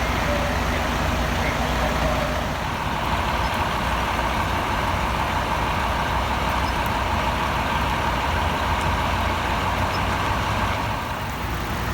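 Heavy fire truck engines idling steadily, a low rumble, with a steady mid-pitched hum that comes in about two seconds in and fades near the end.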